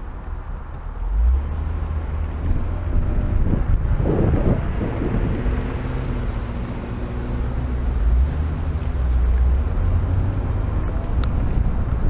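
Car driving: low road rumble and wind noise on the microphone, with the engine's pitched hum standing out and shifting about four to six seconds in.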